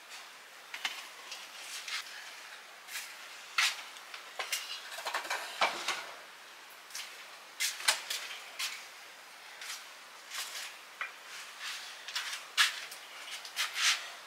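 Scattered knocks, taps and clatter of household things being handled and set down: a steel plate and a wooden block on an earthen floor.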